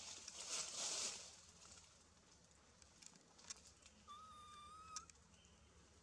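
Leaves rustling for about the first second, then a few soft clicks, then one high, steady whistled animal call lasting about a second, about four seconds in.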